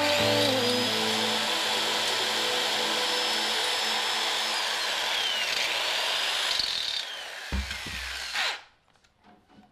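Electric rotary tool with a mounted grinding stone grinding out a port in a two-stroke motorized-bicycle cylinder. Its high motor whine dips in pitch about halfway through, then picks up again as the stone bears on the metal. The tool stops about eight and a half seconds in.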